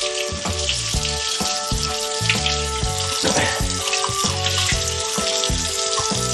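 Tap water running and splashing onto a small cast iron skillet as it is rinsed under the faucet. Background music with a steady beat plays throughout.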